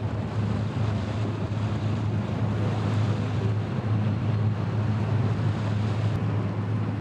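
A river taxi boat's engine running with a steady low drone, under the rush of water along the hull and wind on the microphone.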